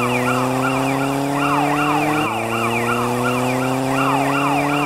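Electronic police siren in a fast yelp, each sweep rising about three times a second, over a steady engine-like hum that slowly climbs in pitch and drops back once midway.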